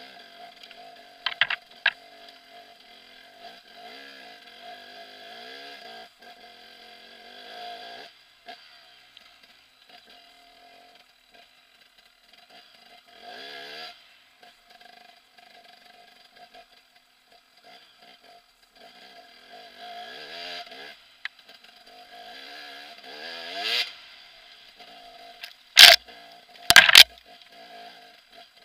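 KTM 300 EXC's 300cc two-stroke single engine running on a rough trail, its revs rising and falling constantly with the throttle. A sharp knock sounds early on and two loud knocks come about a second apart near the end.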